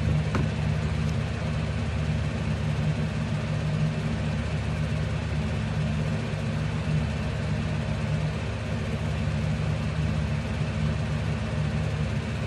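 A steady low machine hum that holds at one level throughout.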